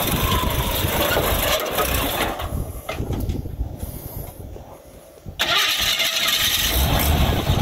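Postal Jeep's engine being cranked and restarting after stalling on the trail, then running; the sound drops away for a few seconds and comes back suddenly about five seconds in. The stalling is the fuel cutting out when the Jeep hits a bump too hard.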